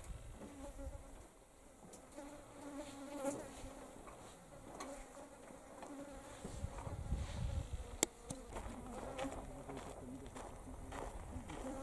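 Flies buzzing around, a hum that wavers up and down in pitch, with one sharp click about eight seconds in.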